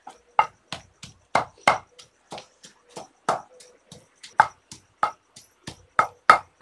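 Chutney being pounded by hand with a wooden pestle in a mortar bowl: steady repeated strikes, about three a second, some louder than others.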